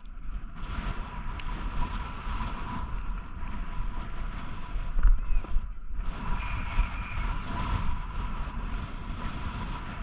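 Snowboard sliding and carving over groomed snow, a steady rough scraping hiss, with wind buffeting the microphone. The scrape drops out briefly about six seconds in, then picks up again.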